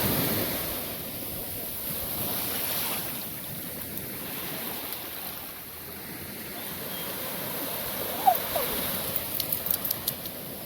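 Ocean surf washing onto the beach, a steady rush that swells at the start, with wind on the microphone. A brief gliding call about eight seconds in and a few small clicks near the end.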